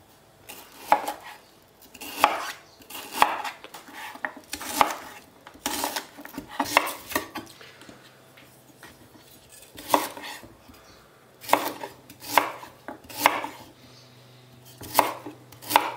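Kitchen knife chopping fresh rhubarb stalks into small pieces on a wooden cutting board: crisp strikes roughly a second apart, some in quick pairs, with a couple of short pauses.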